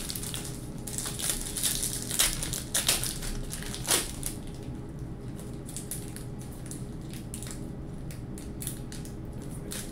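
Trading-card pack wrapper crinkling and tearing as a pack of 1998 Score football cards is ripped open by hand, with the loudest crackles in the first four seconds. Then comes softer rustling and light ticking as the stack of cards is pulled out and handled.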